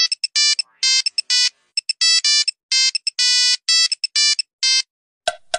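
Electronic ringtone-style melody: a quick run of short, bright beeping notes in an uneven rhythm, stopping a little before the end, where a different clicking beat starts.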